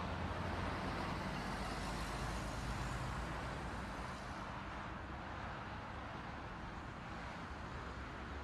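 Steady car engine hum and traffic noise picked up by a dashcam inside the car, without any distinct bang or crackle; it eases slightly about four seconds in.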